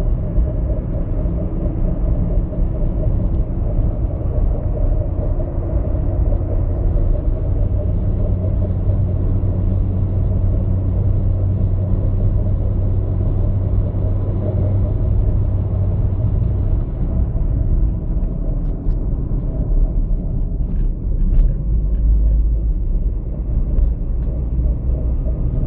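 Peugeot 206 running with a steady low rumble; a deeper hum holds from about six seconds in until about seventeen seconds, then the rumble changes character. This is the odd noise the car is being recorded for.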